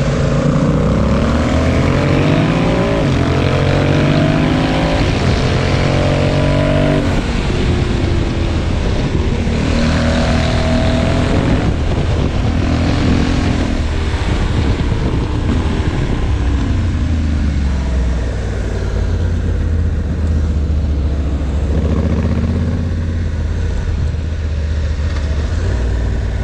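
Motorcycle engine pulling up through the gears, its pitch rising and then dropping back at each shift, several times over. A steady rush of wind noise runs underneath.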